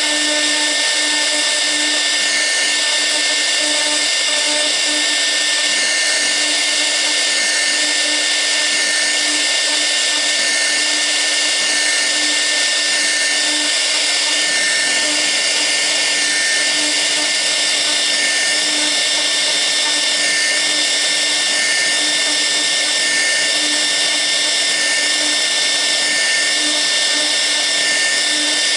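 Air-cooled spindle of a 1325 CNC router running with a steady high whine while a V-bit cuts the workpiece; the cutting hiss swells and eases every second or so as the tool follows the carving path.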